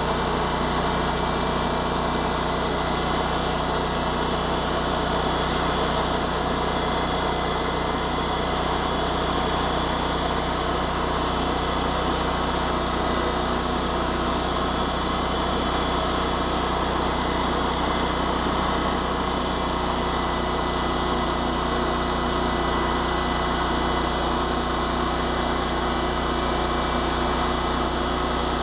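An engine running steadily at constant speed, with a steady hum and no change in pitch or level.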